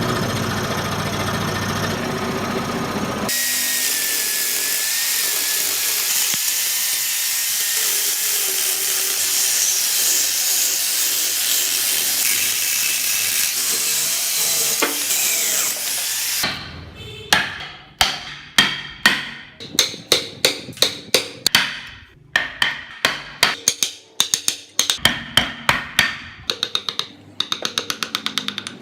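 A power tool running steadily on wood for the first half, then a run of sharp hammer or mallet blows, about two to three a second, each ringing briefly.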